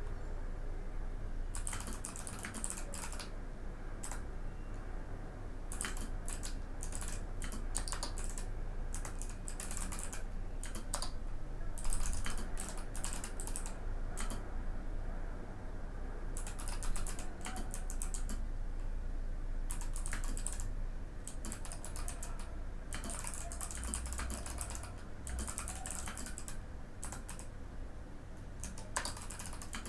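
Mikit M65 mechanical keyboard with clicky Kailh Box White switches being typed on in quick runs of crisp keystrokes, broken by short pauses, over a faint steady low hum.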